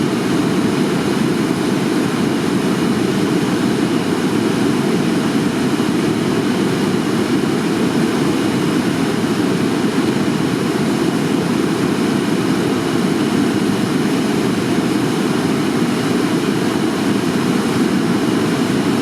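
Tama River running high and fast with typhoon floodwater: a steady, unbroken rush of water.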